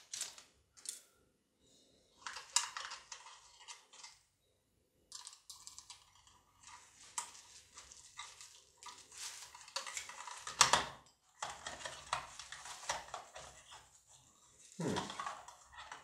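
Small plastic clicks, taps and crinkling as a 9-volt battery is handled, clipped onto its snap connector and pushed into the plastic battery compartment of a handheld EMF meter. One louder knock comes a little after halfway.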